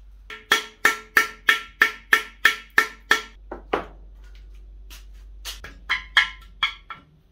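Hammer striking a tool driven into a Welsh (core) plug in a Chevy 350 small-block's cast-iron block to knock the plug out: about a dozen sharp, ringing metal strikes at roughly three a second, a pause, then another quick run of about six strikes.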